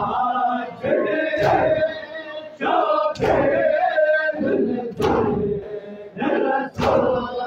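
A crowd of men chanting a noha while beating their chests in unison during matam. Four loud, sharp slaps land together about every two seconds, with the chanting voices filling the gaps between them.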